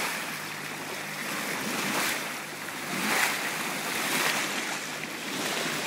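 Bow wave rushing and splashing along a moving motor boat's hull, with the engine humming low and steady underneath. Short louder whooshes come about two, three and four seconds in.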